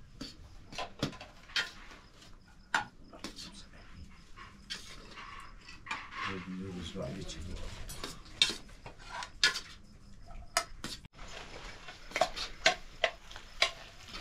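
Irregular clinks and knocks of hard objects being handled, with several louder strikes in the second half. A short pitched call is heard about six seconds in.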